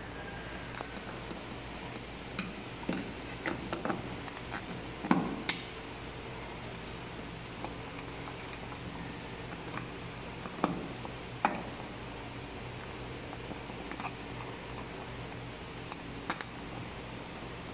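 Scattered clicks and knocks of a white plastic lampholder being handled and fitted onto a red plastic octagonal junction box, the loudest knock about five seconds in, over a steady low hum.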